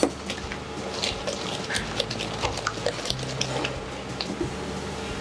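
Wire whisk beating a thick flour-and-milk crumpet batter in a stainless steel bowl, the wires clicking and scraping irregularly against the metal over a low steady hum.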